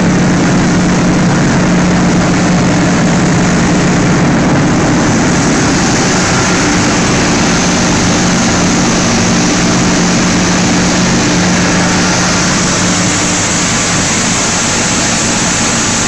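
Machinery of a PE film washing and recycling line running steadily: a loud, constant hum with a hiss over it that turns brighter about five seconds in.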